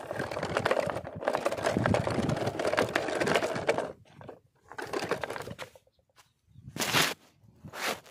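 Wooden toy truck pushed by hand over gritty sandy ground: a dense crunching scrape for about four seconds, then a few short scuffs, the loudest near the end.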